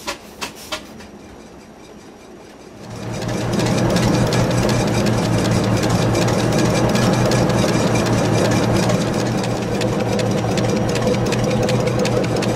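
Vintage Samofa experimental diesel engine, rated 100 hp at 428 rpm, running steadily with a fast even beat. It comes in loud about three seconds in, after a few sharp clicks and a quieter spell.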